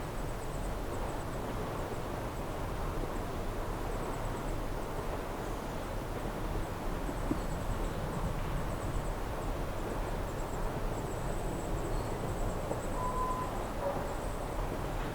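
Lakeside outdoor ambience: a steady low rush of breeze and lapping water, with faint high chirping through much of it and a short whistled call near the end.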